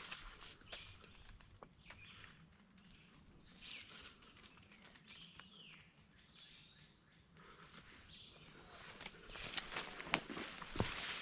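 Quiet woodland ambience: footsteps rustling and snapping through leafy forest undergrowth, faint at first and louder near the end, over a steady high insect trill. A few short bird calls come in the middle.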